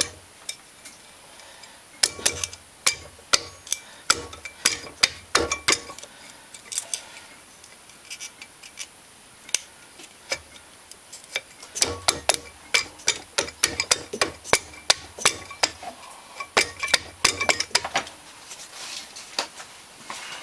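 Bursts of sharp metallic clicks and taps as a Honda Foreman 500 cylinder is rocked back and forth and tapped around in a circle on its studs, working it down over the piston. The new rings have not yet slipped into the bore.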